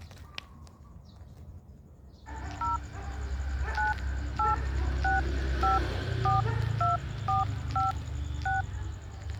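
Mobile phone keypad dialing tones: about ten short two-note touch-tone beeps, roughly one every half second, as a phone number is keyed in. A low rumbling background runs underneath.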